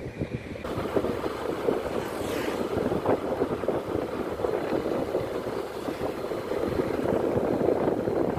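Wind rushing and buffeting on the microphone of a moving motorbike, with the bike's engine and road noise underneath. The sound jumps up abruptly just under a second in and then stays steady.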